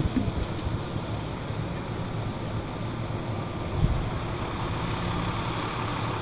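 Steady low rumble of idling vehicle engines under general outdoor background noise, with a faint thump about four seconds in.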